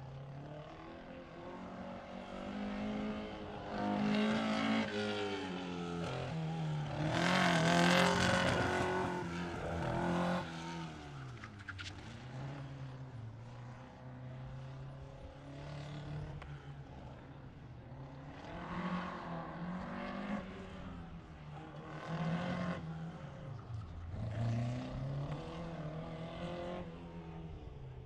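Series 1 Lotus Seven's engine revving up and falling back again and again as it is driven hard round an autocross course. It is loudest about a quarter of the way in, as the car accelerates nearest the microphone.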